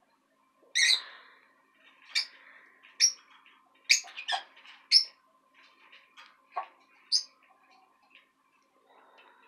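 Pet lovebirds calling: about eight short, high chirps spaced unevenly, some close together and others a second or more apart.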